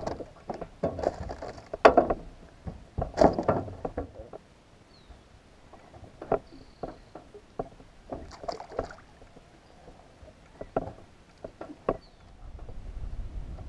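Water splashing and a flurry of knocks as a largemouth bass is lifted from the water into a bass boat, busiest in the first few seconds. Scattered sharp knocks and clicks on the boat follow while the fish is handled.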